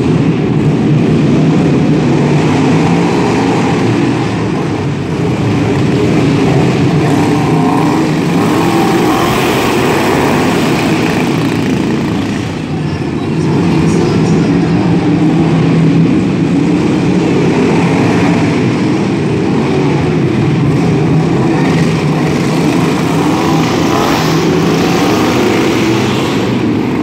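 Several racing riding lawnmower engines running hard as the mowers circle the track, their pitch wavering up and down as they speed along and pass.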